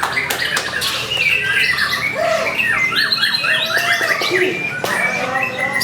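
White-rumped shama (murai batu) singing a continuous, varied song of clear whistles, rapid trills and harsh notes.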